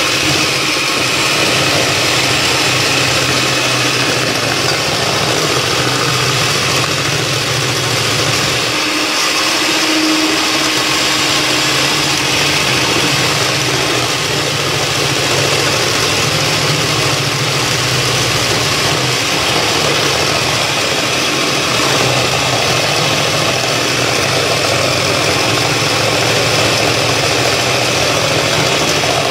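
Handheld electric mixer running steadily, its twin wire beaters whisking a thin liquid cake batter in a stainless steel bowl.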